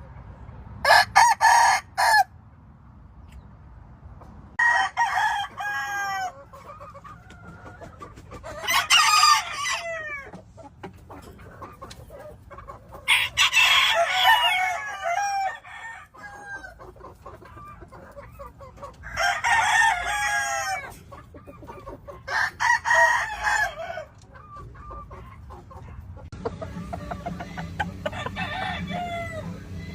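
Gamefowl roosters crowing, one after another, about six crows in all, with quieter clucking between them.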